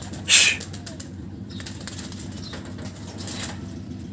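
Pigeons' wings flapping as they take off, with one loud burst of wingbeats just after the start and a fainter one a little past three seconds.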